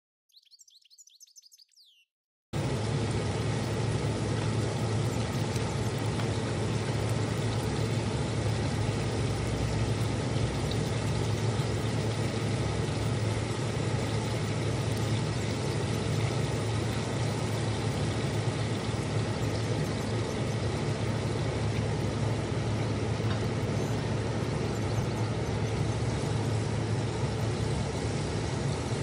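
A few faint high chirps, then a steady low hum with a constant hiss over it that starts abruptly after about two and a half seconds and runs on unchanged.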